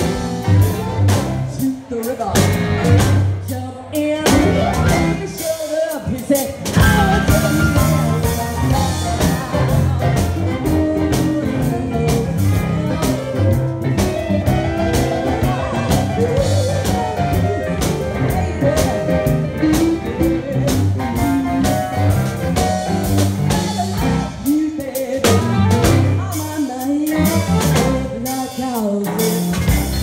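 A woman singing a blues song into a microphone, backed by a live band with guitar and drums.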